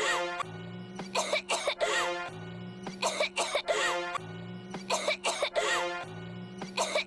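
A short clip of coughing played on a loop, repeating about every two seconds. Each repeat is a held pitched sound followed by a few quick coughs.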